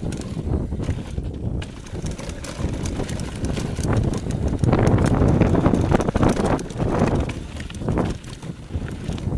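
Downhill mountain bike ridden fast over a rough dirt trail: tyres rolling over dirt and roots and the bike rattling over bumps, in a steady rumble with many small knocks, loudest and roughest about halfway through.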